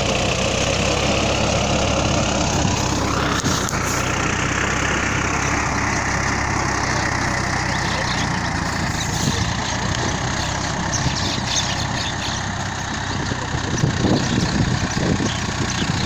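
Swaraj 960 tractor's diesel engine running steadily under load while its rotavator churns through wet soil, with a rise and slow fall in pitch a few seconds in.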